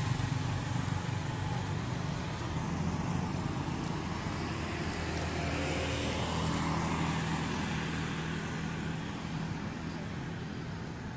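A motor vehicle engine running steadily, a low hum that swells slightly about six to seven seconds in, with faint road traffic behind it.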